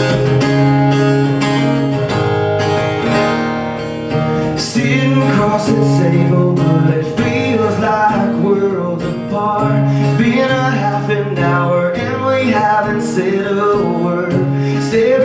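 Acoustic guitar strumming the chords of a country song's intro, played live.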